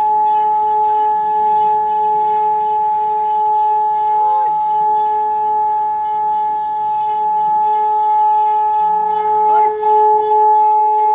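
Large bossed gong made to sing by rubbing its raised centre boss with a palm, giving a steady drone of a low tone and one an octave above it. The lower tone swells near the end.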